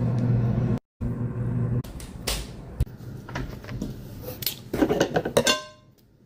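A steady low hum that cuts out abruptly just under a second in, then handling noise: scattered knocks and clatter, with a quick flurry of knocks near the end that ends in a brief ringing clink.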